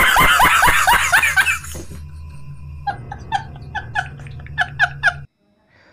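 A man laughing hard: a loud run of rapid laughs, then a quieter, evenly paced ha-ha-ha over a low hum, stopping about five seconds in.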